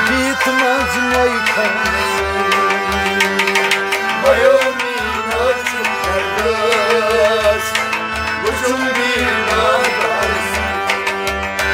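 Harmonium playing held notes and a melody, with a hand drum keeping a steady rhythm beneath: an instrumental passage between sung lines of a Kashmiri Sufi kalam.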